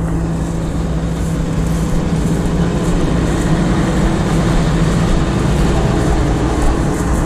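Claas Lexion 460 combine harvester running with a steady, even hum and a low drone.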